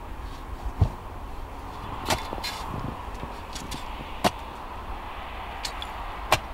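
A long-handled shovel digging into a mound of loose dirt: a few sharp scraping strikes of the blade, about two seconds apart, after a dull thump about a second in, over a steady low rumble.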